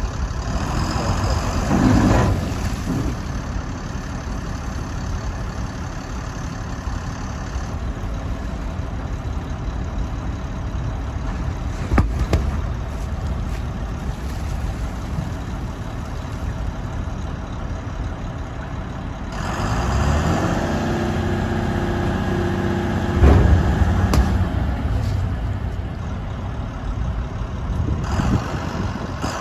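Volvo A25D articulated dump truck's diesel engine running while the hydraulic tipper body is raised and then lowered. The engine revs up for several seconds past the middle. There is a sharp knock about twelve seconds in and a heavier clunk a few seconds after the revving begins.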